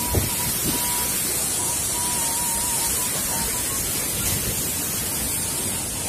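Waterfall rushing: a steady, even hiss of falling water with no breaks.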